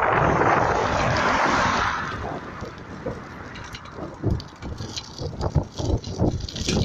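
Bicycle ride with wind rushing over the microphone: a loud rush that fades over about two seconds, then irregular rattles and knocks from the bike.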